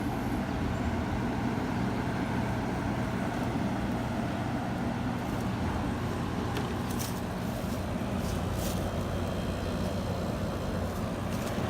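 A 1984 Gibson-built Kenmore window air conditioner running on low cool, its Matsushita rotary compressor humming steadily under the rush of air from the fan. A few faint clicks come about two-thirds of the way through.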